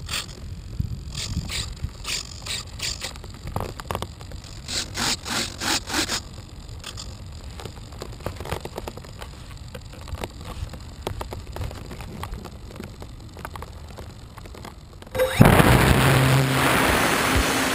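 Knocks and scrapes of the RC plane's foam airframe being handled, then about 15 seconds in the electric motor of a ParkZone P-51 Mustang RC plane starts up suddenly and loudly, its propeller wash rushing over the nose-mounted camera with a low steady hum.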